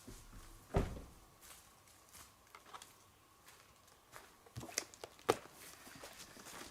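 Quiet, scattered knocks and clicks; the loudest is a low thump about a second in, with a few sharper clicks about two-thirds of the way through.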